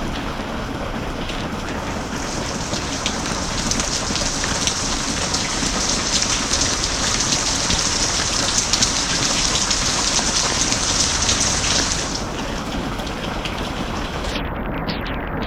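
Steady rain falling, a dense hiss full of fine pattering drops. The patter grows brighter about two seconds in and eases again near twelve seconds.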